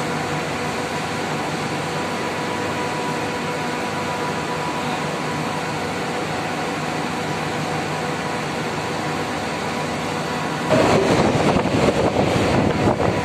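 Steady hum of an air-cooled chiller running, with a few steady tones in it. About ten and a half seconds in, a louder rushing noise starts suddenly: the newly replaced condenser fan motor is bumped on through its contactor for a rotation check.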